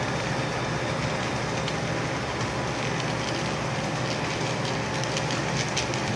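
HO scale model train running on the layout track as it approaches: a steady mechanical hum and rumble, with light clicks starting about three seconds in as it draws nearer.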